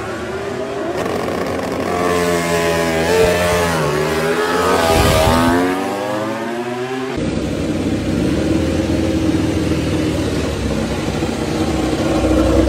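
Ducati MotoGP race bike's V4 engine revving hard on track, its pitch climbing and dropping through gear changes, loudest as it passes about five seconds in. After a sudden change about seven seconds in, the engine runs at a steadier pitch on a stationary bike, throttle worked by hand.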